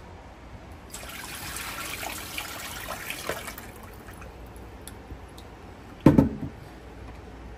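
Blended liquid poured out through a strainer, running for about two and a half seconds, then one loud thud about six seconds in.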